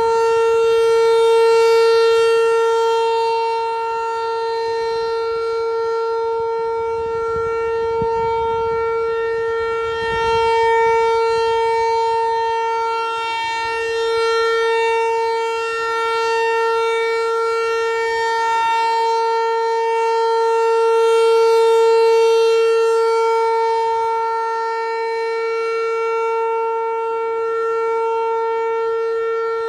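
Outdoor tornado warning siren sounding its steady alert signal: one constant loud tone that holds its pitch, swelling and fading in loudness every several seconds.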